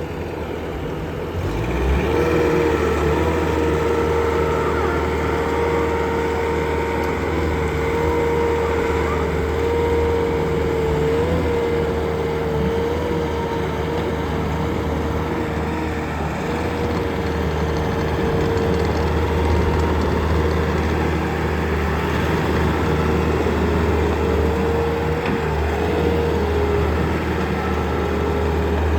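Bobcat T550 skid steer's diesel engine running steadily, with a constant whine over the low engine note. It gets louder about two seconds in.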